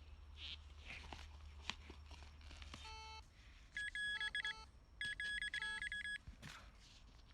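Metal detector sounding off on a buried target: a short low beep about three seconds in, then two stretches of rapid, high-pitched chopped beeping, each about a second long. Before the beeps there are scattered scrapes and clicks.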